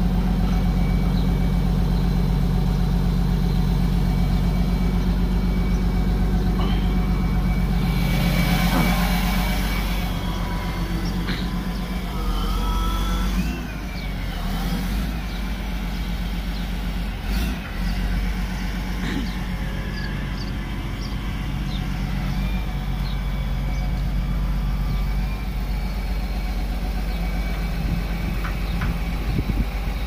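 Caterpillar wheel loader's diesel engine running steadily, loudest for the first ten seconds and then a little quieter. A hiss lasting about two seconds comes just before it drops.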